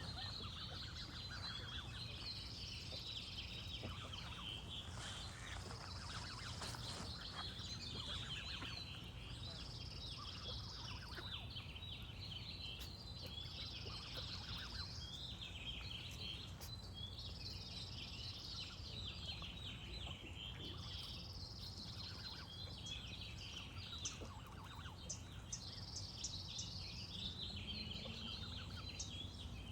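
Songbirds chirping in a dense chorus, with a high trill that repeats about every three to four seconds, and goose honks among them, over a steady low rumble.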